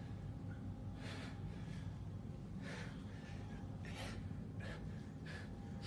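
A man breathing hard during hex trap bar deadlifts: short, sharp gasping breaths about once a second, over a steady low room hum.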